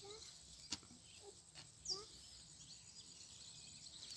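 Quiet outdoor field ambience with a few faint short chirps, likely birds, and two or three soft knocks.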